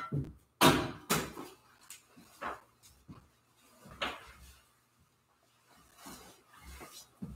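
A series of wooden knocks and thumps from things being handled at an altar, the loudest a little under a second in, then fainter knocks and shuffling.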